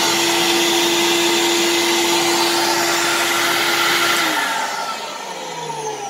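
A 1994 Hoover central vacuum running steadily with a hum, working normally, then switched off about four seconds in and winding down with a falling whine.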